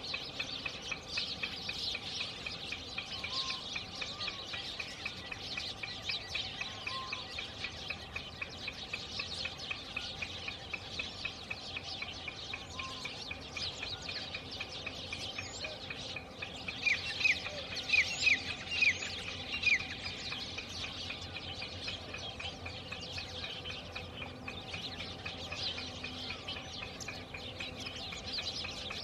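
A steady chorus of high, fast chirping from wild birds, with faint short calls every few seconds. A little past the middle, one bird gives a loud run of about six sharp, falling notes.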